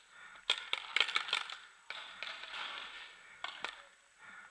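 Footsteps crunching over brick rubble and debris: a quick cluster of sharp crunches and clicks about a second in, a scuffing stretch, then two more crunches near the end.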